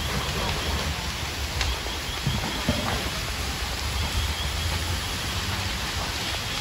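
Steady rushing hiss of fire hose streams spraying water, over a continuous low rumble.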